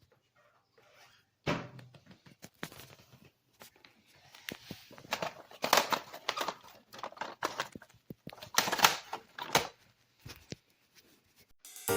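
Irregular plastic clicks and knocks from a stick vacuum being handled, its parts pressed, detached and set down, beginning about a second and a half in and busiest in the middle.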